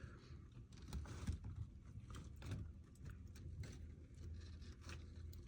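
Faint, scattered light taps and clicks over a low steady hum.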